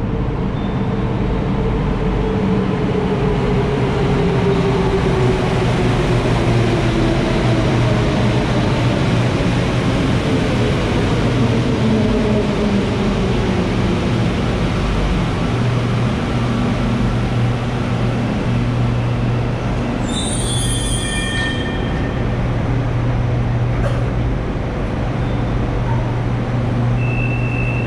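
Santiago Metro Line 1 rubber-tyred train running, a loud steady rumble with a low hum under it. Whines falling slowly in pitch through the first dozen seconds. A brief cluster of high tones comes about twenty seconds in, and a steady high tone starts near the end.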